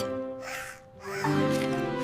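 Background music of sustained held notes in two phrases, with a brief dip about a second in.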